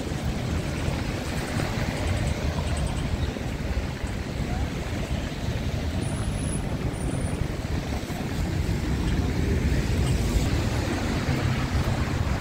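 City street traffic: road vehicles running past in a steady wash of noise with a low rumble.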